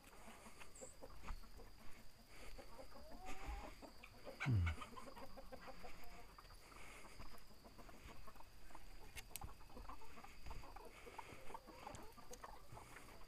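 Chickens clucking softly, with scattered short clicks and scuffs. About four and a half seconds in, a short low sound drops in pitch and is the loudest thing heard.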